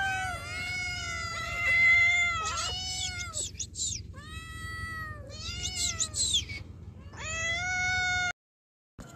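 Several hungry tabby kittens and young cats meowing for food, their calls overlapping one after another. The meowing stops abruptly about a second before the end.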